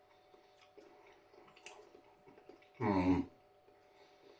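Faint small clicks of a fork against the plastic microwave-meal tray while he eats a bit of mushroom, with a short voiced "mm" about three seconds in.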